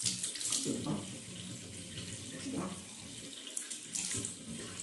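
Tap water running into a bathroom sink, with irregular splashes as a wet hand scoops up water to wet the hair.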